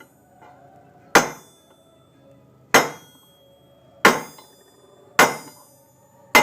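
Hammer striking a silver bar being forged hot: five blows about a second and a half apart, each with a short metallic ring.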